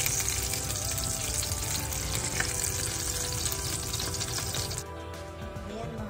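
Hot oil sizzling and crackling in a frying pan as pieces of fried chicken leg quarter are lifted out; the sizzle cuts off suddenly about five seconds in.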